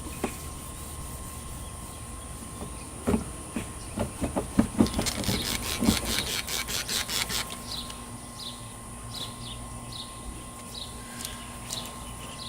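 Quick, repeated scraping strokes, several a second for about four seconds starting about three seconds in, as thick spray-paint vandalism overspray is shaved off a truck's surface. Birds chirp in short falling calls in the second half.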